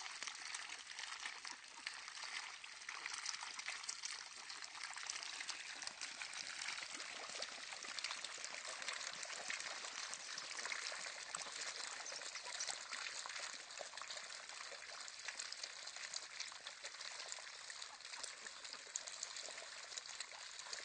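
Ducks dabbling and foraging in shallow rice-paddy water: a faint, steady patter of small splashes and trickles, full of tiny clicks.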